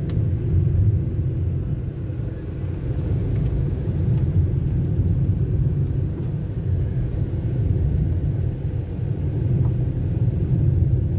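A car driving, heard from inside the cabin: a steady low rumble of engine and tyre noise on the road.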